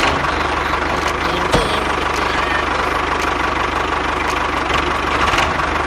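Steady engine-like idling drone from a mini tractor, with a few sharp clicks, the strongest about a second and a half in.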